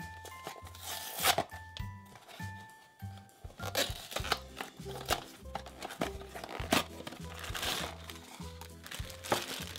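Small cardboard blind box being torn open by hand and its packaging crinkled, with several sharp tears and rustles, over background music with a repeating bass line.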